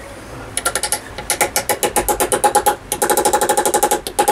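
Rapid hammer taps on metal, about eight to ten a second with a couple of short pauses, each with a bright metallic ring: a part being knocked home into a motorcycle wheel hub.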